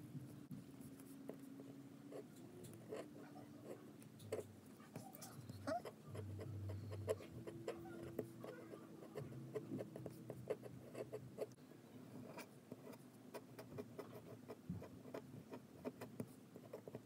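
Fountain pen nib writing on paper: faint scratching strokes with many small ticks as the nib lifts and sets down.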